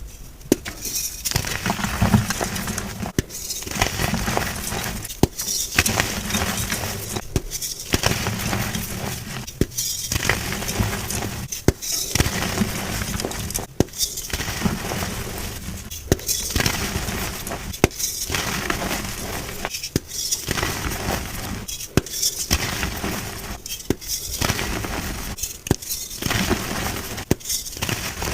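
Blocks of gym chalk being crushed and crumbled: dense, crisp crunching with many sharp snaps. The crunching comes in short stretches broken by brief gaps every second or two.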